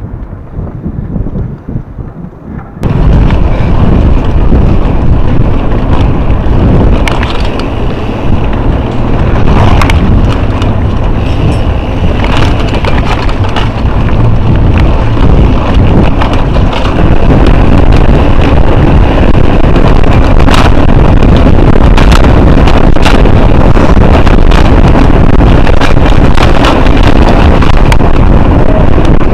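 Wind buffeting an action camera's microphone on a mountain bike riding downhill, mixed with rattles and knocks from the bike over rough ground. It jumps from fairly quiet to very loud about three seconds in and stays loud.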